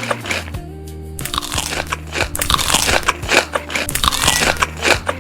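Close-up crunching as a person bites and chews crisp, crunchy food, with a short pause about half a second in before the chewing resumes.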